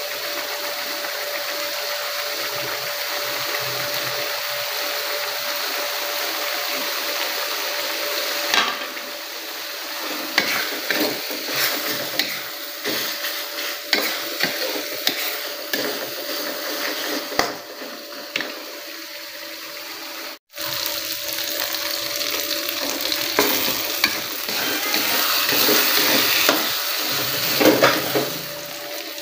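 Food sizzling in hot oil in a pan: a steady hiss at first, then from about a third of the way in the irregular scrapes and clinks of a spatula stirring over the sizzle, broken off for an instant about two-thirds through.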